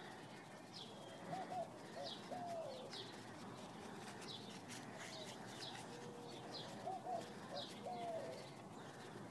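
Faint birds calling: short high chirps repeating every second or so, and a lower three-note call phrase heard twice.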